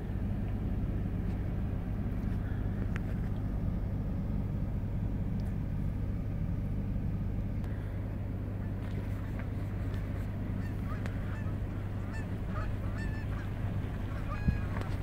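Steady low rumble of a car driving slowly on a gravel road, heard from inside with the window open. From about halfway through, a flock of Canada geese calls overhead with short, repeated honks that grow more frequent toward the end.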